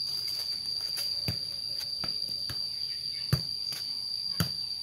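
A steady high-pitched insect drone, with a ball being kicked back and forth by bare feet: several dull thuds at uneven intervals, the loudest a little past the middle.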